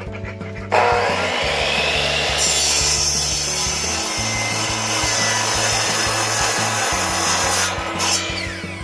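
A Delta sliding compound miter saw starts up about a second in and cuts through a reclaimed wooden board for about seven seconds. Near the end the saw is released and its whine falls away as the blade winds down.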